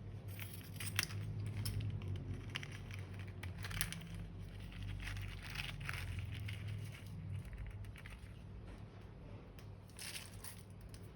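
Plastic piping bags and balloons crinkling and crackling as they are handled and squeezed out for slime making: irregular small crackles and clicks over a steady low hum.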